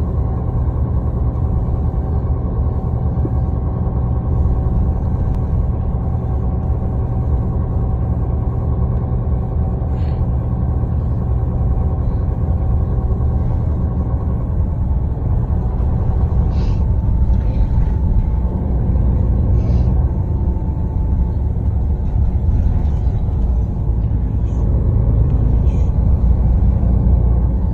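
MAN A22 (NL323F) city bus running on the road, heard from inside the cabin: a steady low rumble of diesel engine and road noise, with a faint steady whine that fades about halfway through and a few light rattles.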